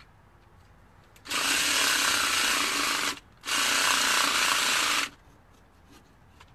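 Battery-powered pumpkin carving saw running in two bursts of under two seconds each, with a short pause between them, as its blade cuts into the pumpkin.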